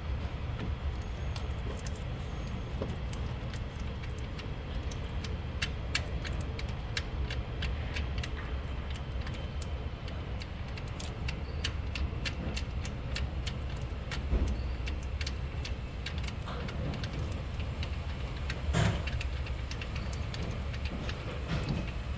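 Hand tools clicking and clinking on metal: many light, irregular clicks over a steady low rumble, with louder knocks about fourteen and nineteen seconds in.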